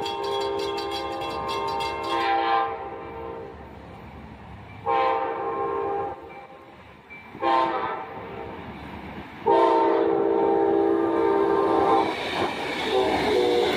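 Amtrak GE Genesis diesel locomotive sounding its multi-chime air horn in the grade-crossing pattern: a long blast ending a couple of seconds in, another blast, a short one, then a long one. The train then rumbles through the crossing with wheels clattering over the rails. Over the first couple of seconds a crossing bell rings rapidly.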